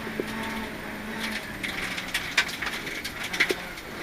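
Rally car at speed on a gravel stage, heard through the crew's intercom: a steady low engine hum under an irregular crackle of sharp clicks and knocks from loose stones striking the car.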